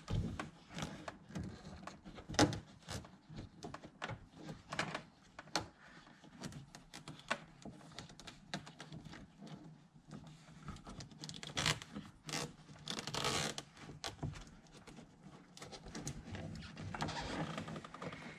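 Handling noises as a thin wire is worked by hand into a car's rubber weatherstrip seal: scattered soft clicks and rubs, with a longer scrape a little after the middle and another near the end.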